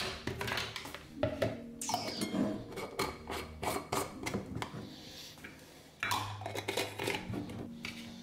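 Plastic lids being set on glass jars and screwed down: a series of sharp clicks, taps and short scraping twists of plastic on the glass threads, pausing briefly past the middle.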